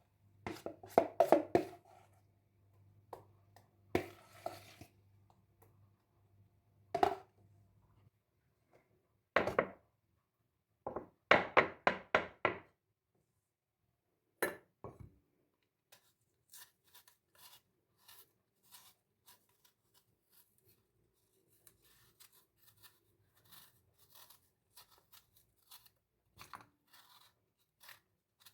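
Irregular sharp knocks and clatters of things being handled, with a quick cluster about halfway through, then a long run of faint light ticks and taps.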